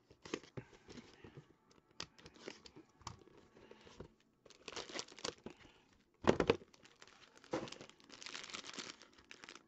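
Plastic shrink wrap being slit with a utility knife and pulled off a sealed trading-card box, crinkling and tearing in short bursts. A thump about six seconds in is the loudest sound.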